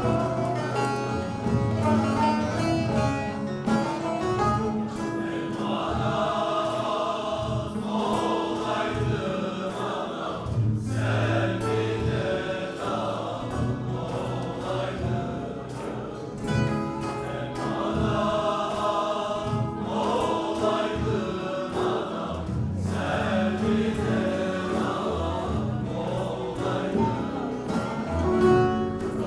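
A choir singing a Turkish folk song (türkü) with instrumental accompaniment. The sung phrases come and go over continuous playing.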